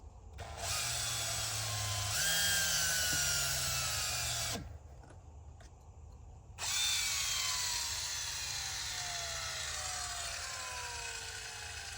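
Cordless drill running in two long runs with a short pause between. In each run the motor's whine slides steadily lower as it slows, the sign of a battery running flat.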